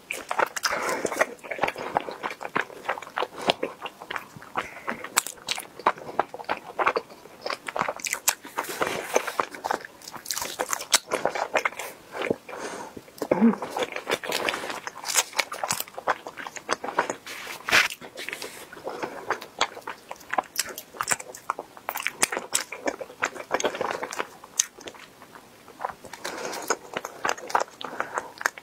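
Bites and chewing of sticky green glutinous rice cakes (qingtuan), heard close up as a steady run of small mouth clicks and chewing sounds.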